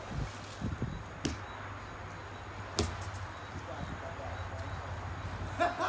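A football being kicked while juggling: a few sharp knocks, the loudest about three seconds in, over a steady low hum. Voices start near the end.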